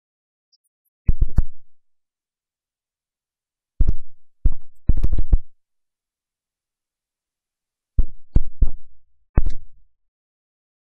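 Clusters of sharp, low thumps, a few in quick succession each time, coming six times with silence between.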